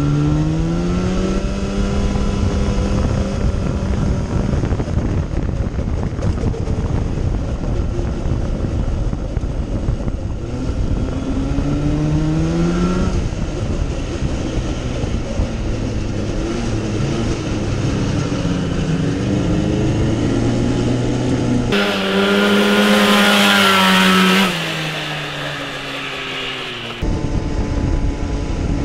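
Snowmobile engine in a small go-kart running hard, its pitch climbing as the kart accelerates, then holding steady, with several more climbs as the driver comes back on the throttle. Near the end, a few seconds of louder rushing hiss sit over the engine.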